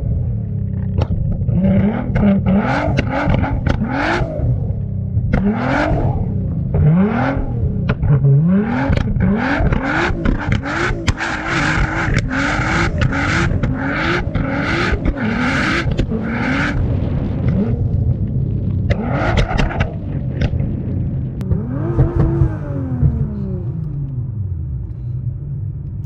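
Tuned Nissan R35 GT-R's twin-turbo V6 revving hard in a run of quick rising surges, with sharp exhaust pops and bangs. Near the end the revs fall away in one long drop.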